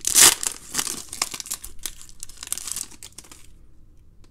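Foil trading-card pack wrapper torn open and crinkled by hand. A loud rip comes at the start, then crackling crinkles of the foil that die away after about three and a half seconds.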